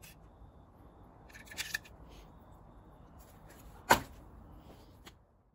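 Steel pipe being pulled out through the opening of a steel compressor tank: a few light clicks and scrapes, then one sharp metal knock just before four seconds in. The sound cuts off suddenly near the end.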